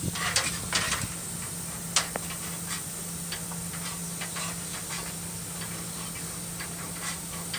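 Dryer vent cleaning equipment running: a steady motor hum under an airy hiss, with scattered light clicks and ticks, most of them in the first second or so.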